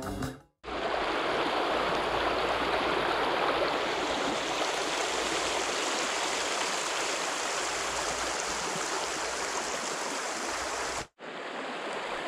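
Small mountain stream running, a steady rush of water. About a second before the end it breaks off for a moment and comes back quieter.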